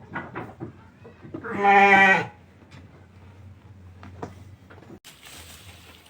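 A Garut sheep bleats once, a single loud call lasting under a second, about one and a half seconds in. Faint short clicks and rustles are heard around it.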